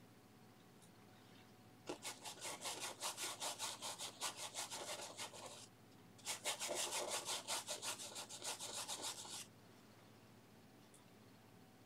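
Paintbrush scrubbing oil paint back and forth on textured canvas, in two bursts of quick rhythmic strokes, about five a second, each lasting three to four seconds.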